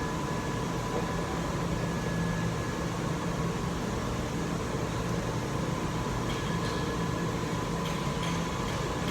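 Steady mechanical background hum with a few faint steady tones, and a few faint light clicks in the second half.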